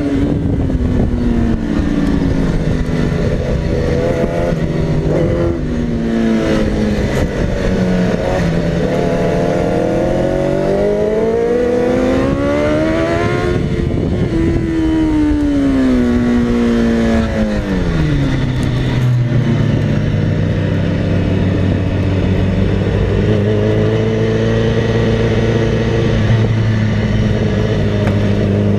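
Sport motorcycle engine heard from on board at speed, its revs falling and rising through corners, peaking about halfway, then dropping sharply and holding steady at low revs for the last ten seconds. Wind rush on the microphone runs underneath.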